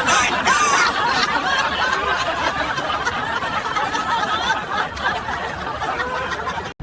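A person laughing hard and continuously in a high, wavering voice, cut off abruptly near the end.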